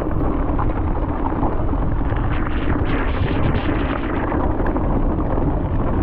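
Wind rushing over the camera microphone and tyres rolling over a dirt trail as a full-suspension mountain bike descends, with scattered small knocks and rattles from the bike over rough ground.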